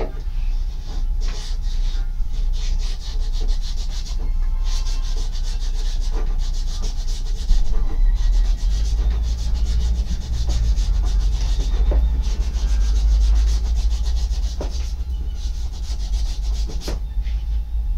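A PVC drain pipe being rubbed or sanded by hand in rapid back-and-forth strokes, with a low rumble underneath and a few knocks near the end.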